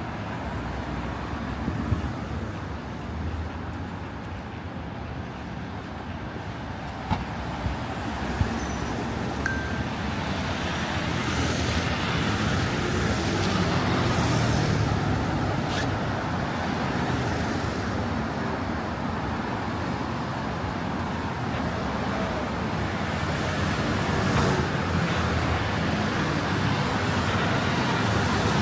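City road traffic passing on a street, a steady rush of cars and larger vehicles that grows louder about a third of the way in, with several vehicles sweeping past. A few sharp clicks stand out in the first third.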